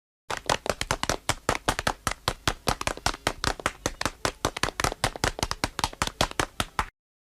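Dragon Ball Z anime running sound effect: a fast, dense patter of footsteps that starts and stops abruptly.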